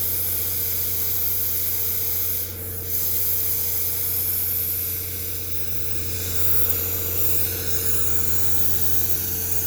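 Steady industrial machinery drone: a constant low hum with a held tone above it and a steady hiss over the top, dipping briefly about two and a half seconds in.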